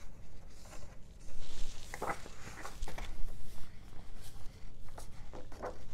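Pages of a large hardcover picture book being turned: paper rustling for a couple of seconds, with a few soft taps and handling clicks.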